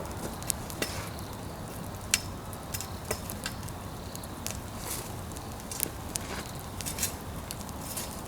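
Pine-log wood fire crackling, with irregular sharp pops over a steady low rush.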